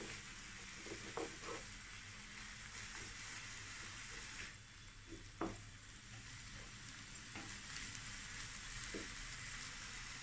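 Shredded cabbage, carrot, prawns and chicken sizzling quietly in a flat nonstick pan as a wooden spatula stirs and tosses them, with a few brief scrapes of the spatula on the pan.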